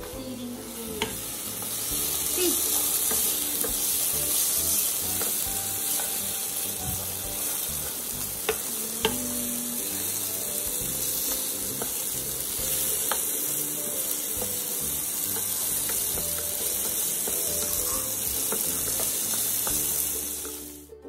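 Chopped vegetables sizzling in hot oil in a nonstick wok as they are stirred with a wooden spatula, with a few sharp taps of the spatula against the pan.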